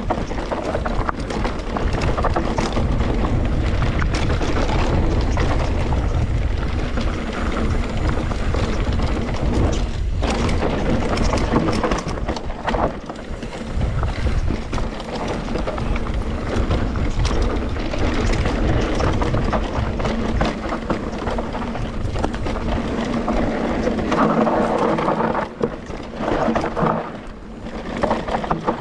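Electric mountain bike descending a dry dirt trail at speed: tyres rumbling over dirt, roots and stones, the bike rattling with frequent sharp knocks over bumps, and wind rushing over the microphone.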